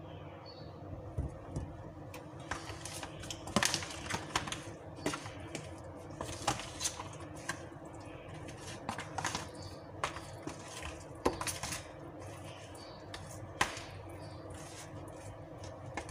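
Metal spoon tapping and scraping against plastic food tubs while chicken pieces are mixed in their marinade: irregular clicks and knocks, thickest in the middle, over a faint steady hum.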